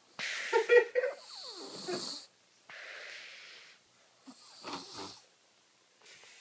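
Baby snoring in its sleep: a loud, rattly snore about half a second in, breathy wheezing breaths after it, and a second snore near the five-second mark.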